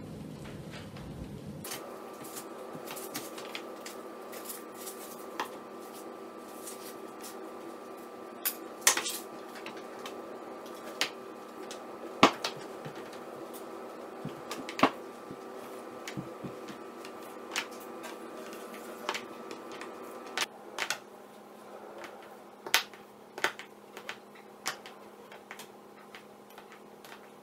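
Scattered light clicks and taps of wire and sugar-paste pieces being handled on a tabletop, over a steady hum that stops about twenty seconds in.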